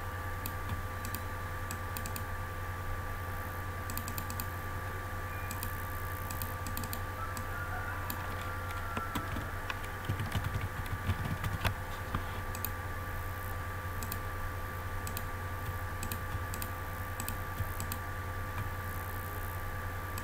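Typing on a computer keyboard: scattered keystrokes, with a denser run of heavier key strikes about ten to twelve seconds in. A steady low electrical hum sits underneath.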